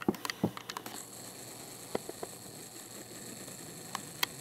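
Camera's zoom lens motor whining steadily as the lens zooms in, starting about a second in, with a few light clicks.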